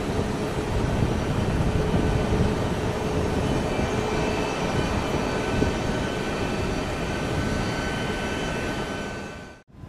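Jet engines of an Airbus A320neo (CFM LEAP-1A) running steadily as the airliner rolls along the runway: a dense rumble with a faint high whine over it. It cuts off abruptly shortly before the end.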